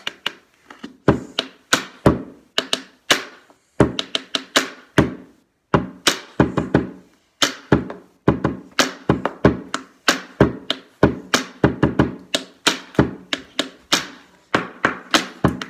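Pen tapping played one-handed: a pen drummed in a quick rhythmic beat of sharp taps and duller thunks, in phrases broken by short pauses.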